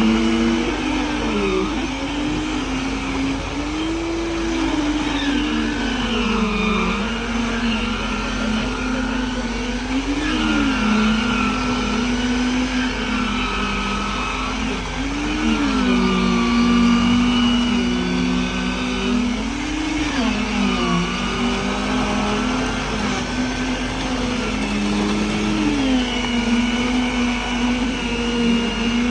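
Machinery running on a concrete pour: a steady engine hum whose pitch rises and falls again and again.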